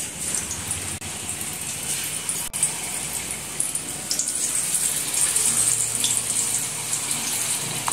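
Batter-coated paneer pieces deep-frying in hot ghee: a steady sizzling hiss with small crackles, growing a little louder about four seconds in as more pieces go into the oil.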